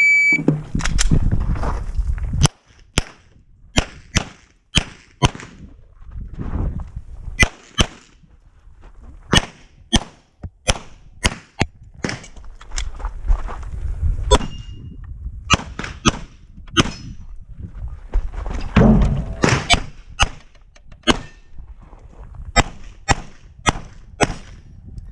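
Shot timer beep, then a handgun fired in quick strings of shots with short pauses between them, as a competitor shoots an IPSC stage.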